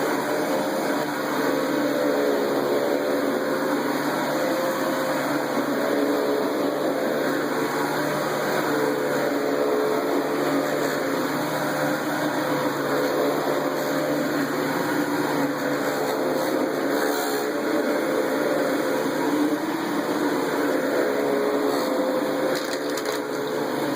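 Sharp 12-amp Supercharged Twin Energy vacuum cleaner running on high power with its brush roll on carpet: a steady motor hum and airflow rush whose pitch wavers slightly up and down.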